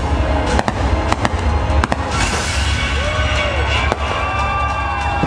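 Fireworks bursting in a rapid series of sharp bangs and crackles over loud music.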